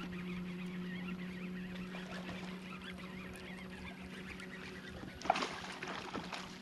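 Birds calling over the water, many short overlapping calls throughout, over a steady low hum. About five seconds in there is a short, noisy burst lasting about a second.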